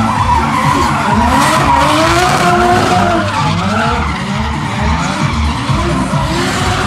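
Drift cars sliding: engines revving up and down against each other, with tyres skidding and squealing on tarmac.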